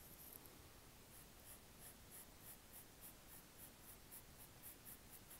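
Red chalk pencil hatching on toned drawing paper: faint, quick scratchy strokes, about three or four a second.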